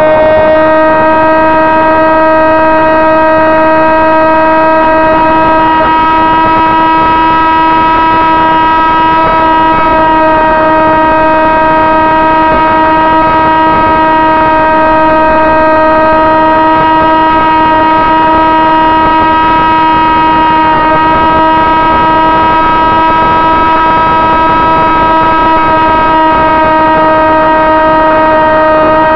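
Brushless electric motor and pusher propeller of a Sonic Models AR Wing FPV flying wing, whining loudly and steadily at a nearly constant pitch, the throttle held at cruise; heard close up through the wing's onboard camera.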